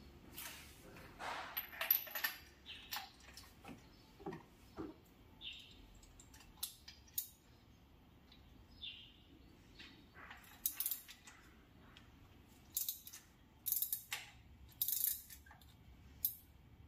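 Irregular metallic clinks, clicks and knocks of hand tools and small metal parts being handled, some ringing briefly.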